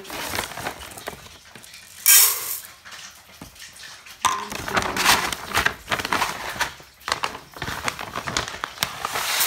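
A rice bag rustling as it is handled and tipped, with dry brown rice grains pouring into the inner pot of a rice cooker. The loudest rustle comes about two seconds in, and further spells of rustling and grain noise run through the second half.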